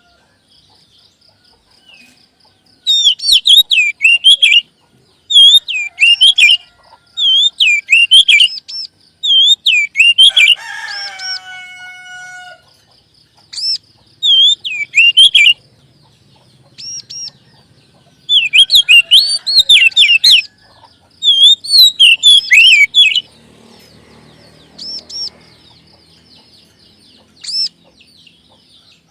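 Oriental magpie-robin song: repeated bursts of quick, high, sliding whistled notes, each lasting a second or two, with pauses between them. A lower, harsher drawn-out call sounds about ten seconds in.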